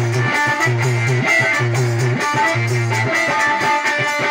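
Instrumental music with no singing: a melody line of held notes and quick runs over a repeating bass pattern.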